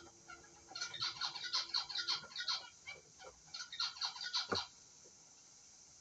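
Cockatiel hatchling in the nest box begging: two bouts of rapid, squeaky chirps, the first about a second long and the second shorter, near the middle.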